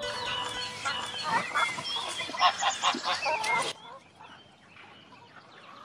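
Chickens and roosters clucking and squawking in a coop, many calls overlapping. The calls cut off suddenly about three and a half seconds in, leaving only a faint background.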